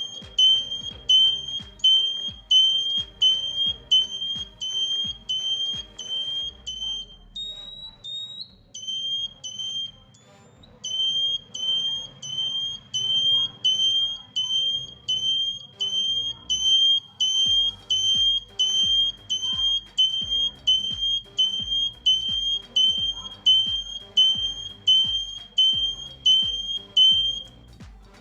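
Buzzer in a relay-driven indicator flasher circuit beeping in time with the flashing, about three short high beeps every two seconds, like a turn-signal ticker. The beeping stops for a few seconds about eight seconds in, with one brief higher tone, then carries on at the same pace.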